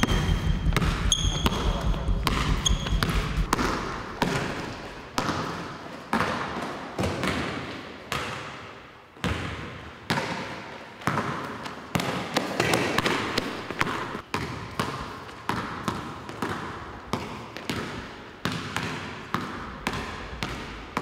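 A basketball dribbled on a hardwood gym floor, bouncing steadily about once or twice a second, each bounce echoing around the empty gym. Sneakers squeak briefly a few times in the first seconds.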